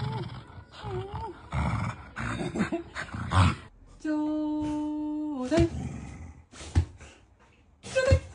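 Shiba Inu growling and grumbling in play, in short bursts with a few rising-and-falling whiny calls. After that comes a steady held tone for about a second and a half that slides down at its end, then a few sharp clicks.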